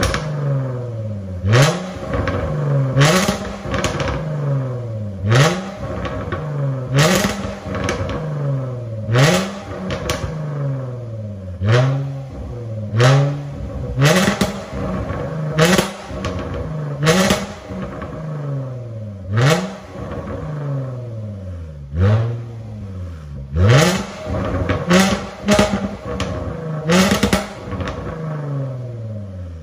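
Range Rover Velar P380's 3.0-litre supercharged V6 breathing through a Fi Exhaust valvetronic cat-back system, free-revved while standing still. Short, sharp throttle blips come every second or two, sometimes in quick pairs, each rising fast and sliding back down to idle.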